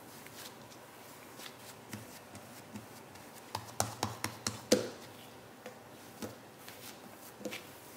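Hands kneading and pressing a ball of bread dough on a silicone baking mat: soft pats and rubbing, with a quick run of sharper taps and slaps around the middle.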